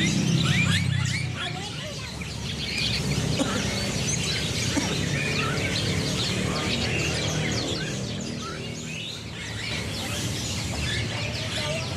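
Many caged birds chirping and twittering at once, with dense overlapping short calls and whistles throughout, over a low background murmur.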